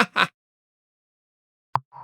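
Synthesized sound effect: the end of a quick run of short notes, each sliding down in pitch, stopping about a quarter second in. Silence follows, then a single short click near the end.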